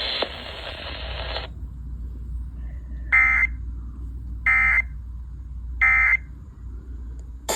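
Emergency Alert System end-of-message code over FM radio: three short, identical raspy data bursts, about a second and a half apart, marking the end of the alert. Before them a hiss stops about a second and a half in, and a low hum runs underneath.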